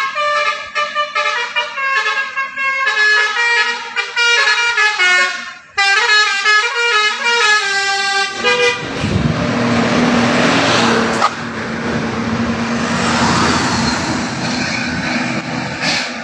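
Telolet basuri musical bus horn playing a quick tune of stepped notes for about eight seconds, with a brief break near six seconds. A loud rushing noise with a steady low drone then takes over.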